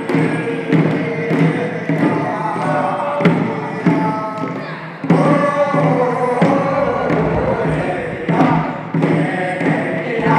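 Korean farmers' field song (deulsori) sung in chorus by a group of elderly villagers, chant-like, over drum beats about every two-thirds of a second. The voices fall away briefly about five seconds in and come back strongly.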